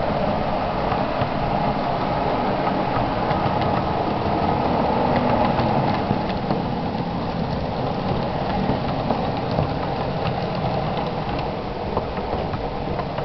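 Model Class 221 Voyager trains running on a model railway: a steady whirring of small motors and gears, with scattered clicks from the wheels on the track, easing off slightly near the end.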